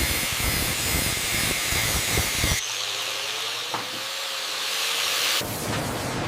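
Factory workshop noise: a steady hiss with rapid clattering, which changes abruptly about two and a half seconds in to a smoother hiss, and the clatter returns near the end.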